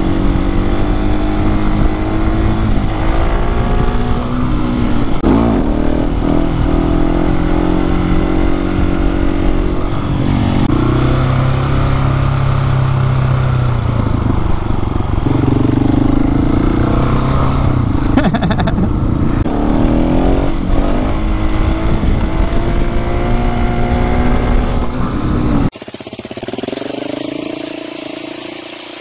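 Husqvarna 701's single-cylinder motorcycle engine running under way, its pitch rising and falling as the rider accelerates and changes gear. Near the end the sound drops suddenly to a quieter engine note.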